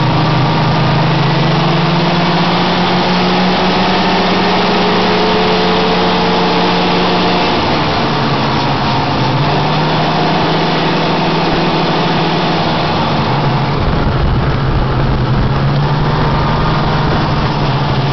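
Snowmobile engine running under way at a steady speed. Its pitch climbs slowly over the first seven seconds, dips briefly about eight seconds in, then holds steady, with a deeper rumble joining from about fourteen seconds in.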